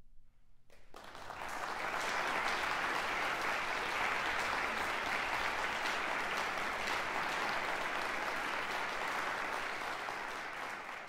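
Audience applause breaks out about a second in, just as the faint tail of the trombone choir's final chord dies away, and holds steady, easing slightly near the end.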